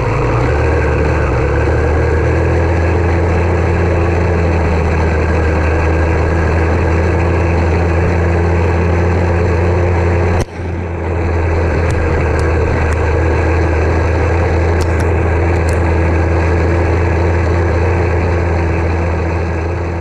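YD100 two-stroke motorized-bicycle engine running with its muffler cap removed: a loud, steady, deep exhaust note. It drops out for a moment about halfway through, then resumes at the same pitch.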